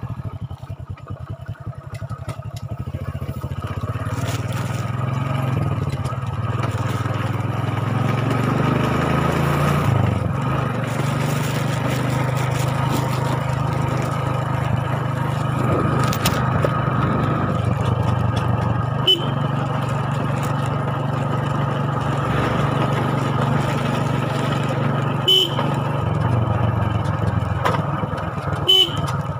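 Motorcycle engine running steadily while being ridden, its note climbing over the first few seconds as it pulls away and shifting about ten seconds in. A few short sharp sounds break in near the end.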